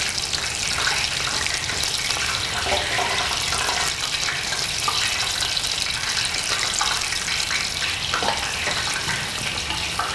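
Hot cooking oil frying: a steady sizzle with scattered small crackles.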